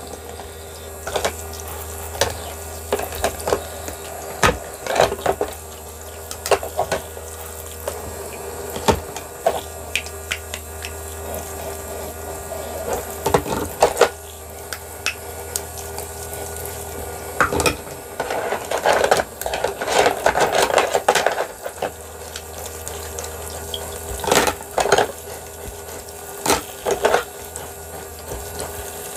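Toy kitchen sink's little water pump running with a steady hum while its faucet trickles water. Plastic toy dishes and utensils knock and clatter in and around the sink, busiest about two-thirds of the way through.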